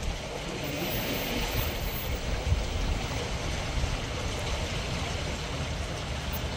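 Elbe floodwater rippling and lapping across a flooded riverside path, a steady watery rush.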